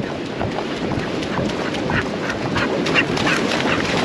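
Small waves washing up on the sand. Over them comes a run of short, sharp sounds, repeating several times a second in the second half.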